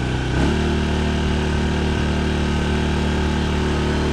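Small 800-watt four-stroke petrol generator engine running just after starting, choke partly on and not in economy mode, so at full speed. Its pitch steps up about half a second in, then it holds a steady run.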